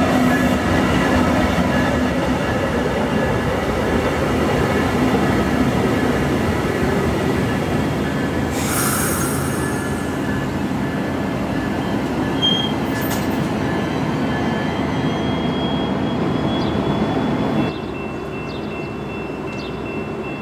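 VIA Rail Siemens Venture passenger coaches rolling past on steel wheels: a loud, steady rumble with a thin high wheel-singing tone over it and a brief burst of hiss partway through. Near the end the sound drops suddenly to a quieter, steadier rumble.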